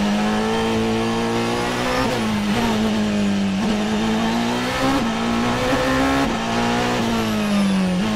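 Onboard sound of the Porsche 919 Hybrid Evo's 2.0-litre turbocharged V4 racing engine, heard from inside the car at speed. Its steady note climbs and then drops back several times as the car shifts between second and third gear.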